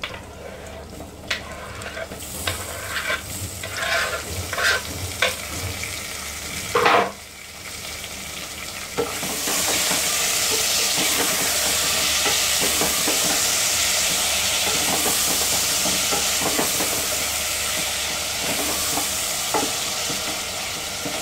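Chopped tomatoes going into hot oil with fried onions and whole spices in an aluminium pressure cooker: scattered knocks and clatter at first, then from about nine seconds in a loud, steady sizzle as the tomatoes fry and are stirred with a spoon.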